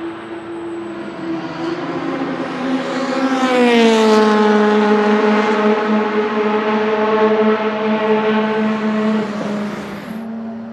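Car engine at speed passing close by on the track, loudest as it goes past, its note dropping in pitch, then holding a lower steady tone as it pulls away.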